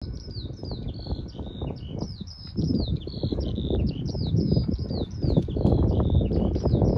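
A songbird singing a steady run of short, falling chirps, about three a second, over a loud, uneven low rumble on the microphone that grows stronger in the second half.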